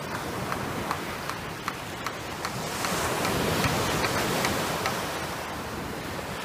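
Small waves washing up on the beach, the surf swelling about three seconds in. A faint, regular ticking sounds about two or three times a second beneath it.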